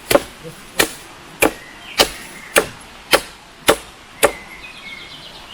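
Chopping: eight sharp, evenly spaced strikes a little over half a second apart, which stop about three-quarters of the way through.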